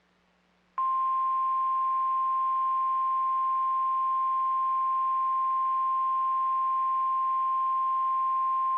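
NOAA Weather Radio 1050 Hz warning alarm tone: a single steady, high-pitched tone that comes on abruptly just under a second in and holds unchanged. It signals that a warning message is about to follow.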